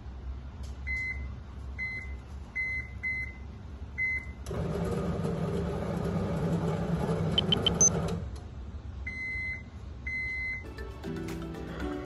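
Microwave oven keypad beeping five times as the cooking time is entered, then the oven running with a steady hum for about four seconds, then two longer beeps as the cycle ends.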